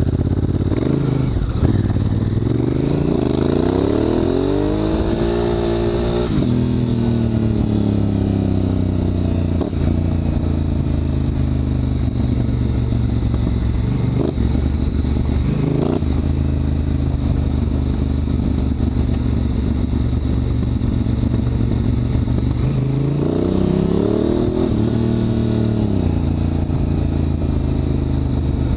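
Honda Africa Twin CRF1000L's parallel-twin engine riding under load, its revs climbing steadily over the first few seconds, then holding fairly steady, with a second rise and fall in revs near the end.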